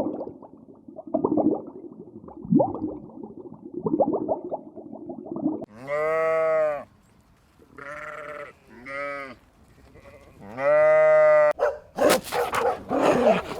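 Sheep bleating: two long drawn-out calls with a shorter, broken one between them, after several seconds of lower, rougher animal sounds. Near the end, dog barking.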